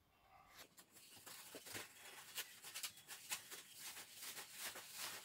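Faint rustling and soft irregular taps from a duvet and toilet paper rolls being handled and tossed, starting about a second in.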